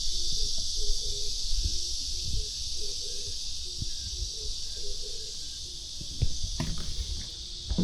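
Insects droning steadily in a high, even buzz, with a few light knocks, the clearest near the end.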